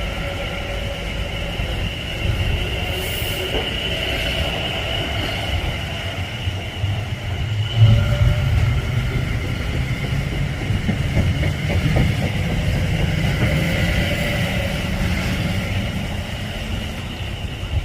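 A train running through the station: a low rumble of wheels on the rails that swells in the middle, with several steady high-pitched tones held over it.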